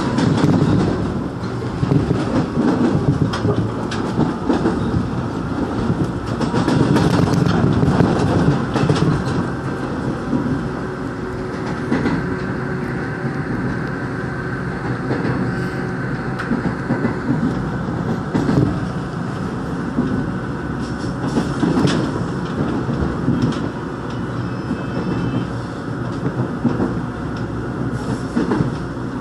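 Korail 1000-series rheostat-control electric train running at speed, heard from inside the passenger car: a steady rumble of the wheels on the rails with frequent clicking clatter over the rail joints.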